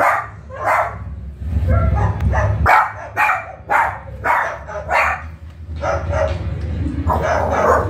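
A run of about a dozen short dog-like barks, roughly half a second apart with a few longer gaps, over a steady low hum.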